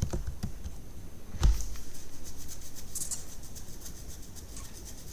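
Typing on a computer keyboard: an irregular run of keystroke clicks, with one heavier thump about one and a half seconds in.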